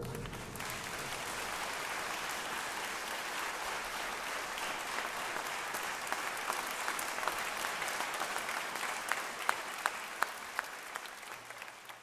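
Concert audience applauding: steady applause that thins into a few separate, distinct claps in the second half and fades out near the end.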